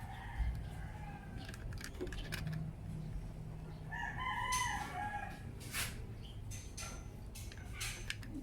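A rooster crows once, a pitched call of about a second beginning about four seconds in, with a fainter crow near the start. Scattered light clicks and knocks sound throughout.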